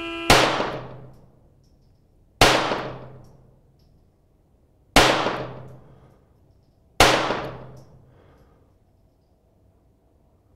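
Four .22 LR pistol shots from a CZ 75B with a Kadet conversion, fired about two to two and a half seconds apart in a timed-fire string, each fading out over about a second. A steady start tone cuts off just as the first shot is fired.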